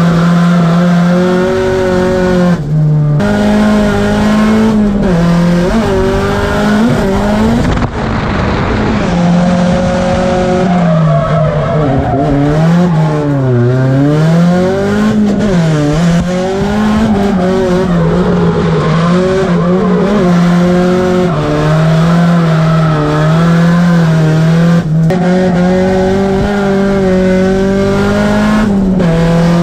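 Drift car's engine heard from inside the cabin, held high in the revs while its pitch keeps rising and falling as the throttle is worked through drifts. Midway the revs swoop down and climb back a couple of times, and several brief breaks in the engine note come when the revs drop off. Tyre squeal runs underneath.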